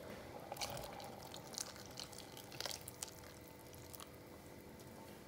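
Water poured in a thin stream from a steel vessel into a clay pot of thick coconut curry, faint, with a few light clicks and drips.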